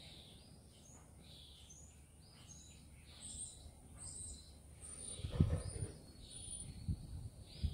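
Faint birds chirping in the background, short high chirps scattered throughout. A few soft low thumps come in about five seconds in and again near the end.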